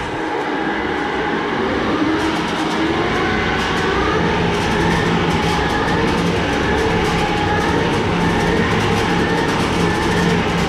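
Old shelter ventilation blower turned by its hand crank, running with a steady whir and rumble that builds over the first couple of seconds and then holds.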